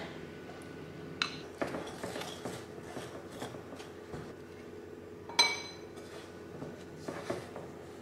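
Chopsticks stirring flour into a wet dough in a glass bowl: scattered taps and scrapes against the glass, with a bright ringing clink about five and a half seconds in and a smaller one after seven seconds.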